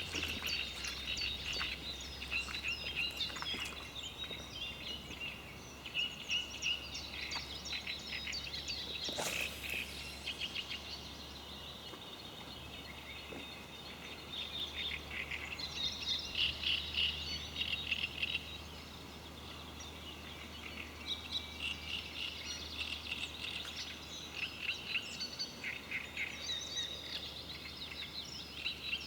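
Several songbirds singing and calling at once, a busy chorus of short chirps and trills that swells and thins in waves. A brief swishing sweep comes about nine seconds in, over a steady low hum.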